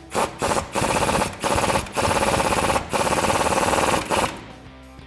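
Pneumatic air ratchet with a 19 mm socket on a swivel, run in about six short bursts of fast rattling, stopping after about four seconds. It is running down and tightening the upper control arm's castle nut.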